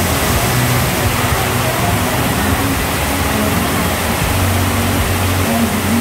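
Heavy tropical rain pouring onto a flooded road, a dense steady hiss of drops hitting standing water. A vehicle engine hums low underneath.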